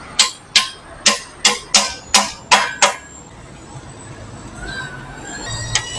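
A quick run of seven sharp knocks, about two to three a second, each with a short ringing tail, then a quieter steady background.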